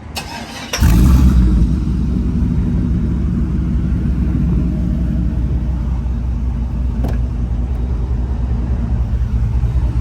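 Stock 5.3-litre V8 pickup with a true dual exhaust, X-pipe and Borla XR1 mufflers starting up: the starter cranks briefly, the engine catches a little under a second in with a short flare, then settles into a steady deep idle rumble.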